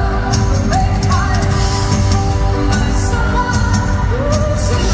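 A woman singing lead with a live rock band, with electric guitar among the instruments, at full concert volume.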